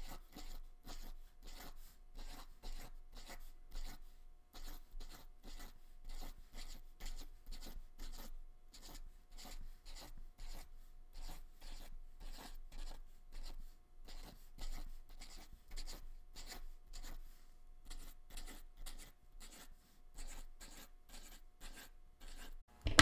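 Tip of a yellow acrylic Sharpie paint marker dabbing small circles onto painted paper: quick short strokes, about three a second.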